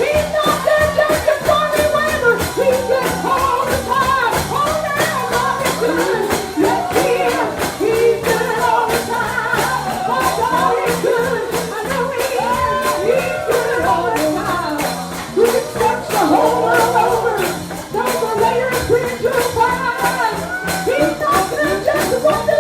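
A gospel song: singing over an accompaniment with a stepping bass line and a steady tambourine beat.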